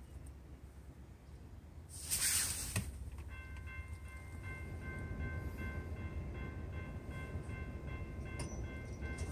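Grade-crossing warning bell ringing as a CSX train approaches, starting about three seconds in, over the low rumble of the train. A brief rush of noise comes about two seconds in.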